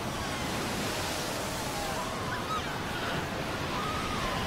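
Waves breaking and washing over a beach crowded with seal pups: a steady rush of surf, with faint wavering calls of the pups above it.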